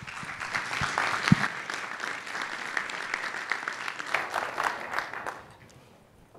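Audience applauding, dying away after about five seconds, with a single thump on the microphone about a second in.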